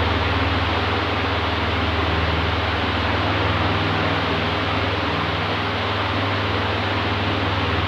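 Oscillating electric fan running steadily: an even rush of air over a low motor hum.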